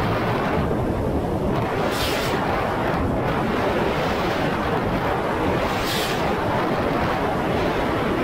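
Jet ski running underway, its engine and hull noise merged with heavy wind buffeting on the bow-mounted camera's microphone into a steady dense rumble. Two brief hisses stand out, about two and six seconds in.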